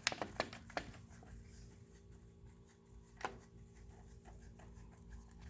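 Faint clicks and light knocks from hands handling a pressure washer's high-pressure hose and plastic fittings. A few sharp clicks come in the first second and one louder click comes a little past the middle, over a low steady hum.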